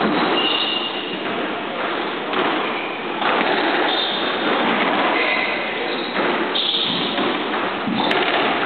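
Squash rally: the ball thudding off rackets and walls, with short squeaks of court shoes on the wooden floor, over a steady noisy din in the hall.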